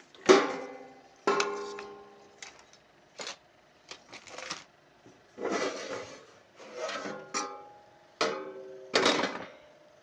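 Sheet-metal cover of an inverter welding machine being lifted off its chassis. Two ringing metal clanks come near the start, followed by scraping and rattling of the loose panel.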